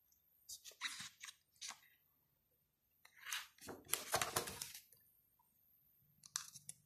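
Pages of a large hardcover photobook being handled and turned: soft paper rustles and crinkles, the longest about three seconds in as a page is flipped over.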